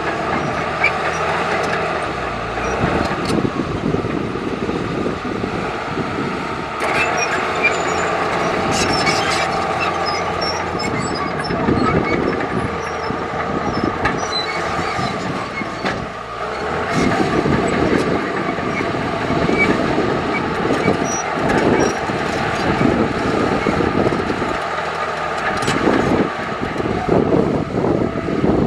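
Heavy diesel earthmoving machinery working: an engine runs steadily under load, with short clanks and rattles scattered over it.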